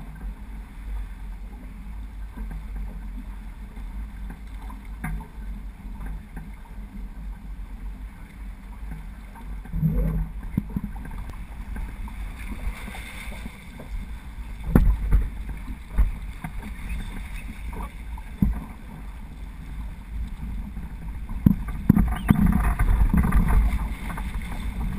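Water rushing along the hull of a J80 sailboat under sail, with wind rumbling on the onboard camera's microphone. Scattered knocks and thumps from the boat come more often and louder in the second half.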